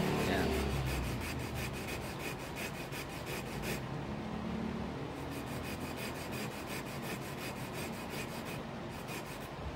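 A small wire fish hook's point being stroked back and forth on a coarse sharpening stone, grinding its point to a slant. Quick, repeated scraping strokes for the first few seconds, then softer, steadier rubbing.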